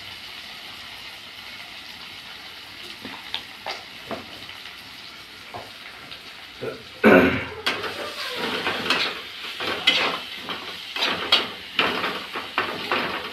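Onion-tomato masala sizzling in oil in a kadai. From about seven seconds in, a spatula scrapes and knocks against the pan in quick repeated strokes as the masala is stirred.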